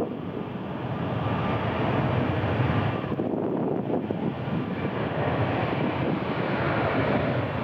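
Steady rushing roar of a jet airliner's engines, with wind buffeting the microphone.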